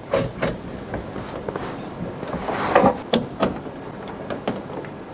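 Screwdriver tightening the screws of a plastic drain saddle on a sink drain pipe: scattered clicks and knocks of tool and plastic, with a louder scrape and a sharp click about three seconds in.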